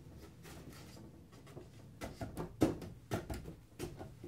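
Wooden tongue-and-groove planter boards knocking and clattering as they are slid down into the grooves of the corner posts and pushed into place. Quiet at first, then from about halfway a quick run of sharp wooden knocks, one of them louder.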